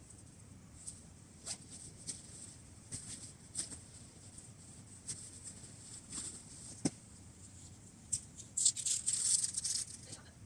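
Light rustling and scattered soft ticks of someone handling a nylon bivouac tent, with a denser, louder stretch of crinkly fabric rustling about eight seconds in as he bends over the tent.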